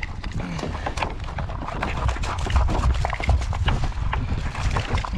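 A blackfin tuna thrashing on the kayak, its tail beating out a rapid, irregular run of knocks and slaps against the hull, over low wind rumble on the microphone.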